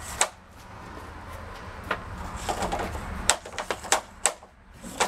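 Hockey stick blade and pucks clacking on a plastic shooting pad: a string of sharp, irregular taps and cracks from stickhandling and shooting, the loudest cracks a little past the middle and about a second before the end.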